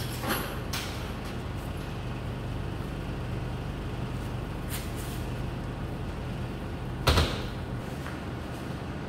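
A truck's metal drop-side panel is lifted and shut, with a knock near the start and a loud bang about seven seconds in, over a steady low hum.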